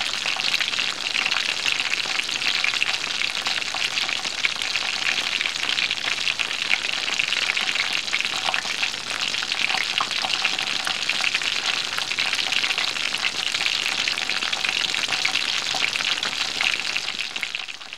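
Food frying in a pan: a steady, dense sizzle of hot oil with many small crackles and pops, fading out at the very end.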